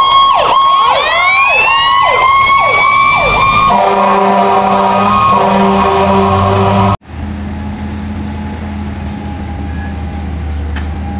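Fire engine siren sweeping rapidly up and down in pitch, followed by about three seconds of steady multi-tone horn. About seven seconds in it cuts off abruptly to the steady low running of a garbage truck's engine.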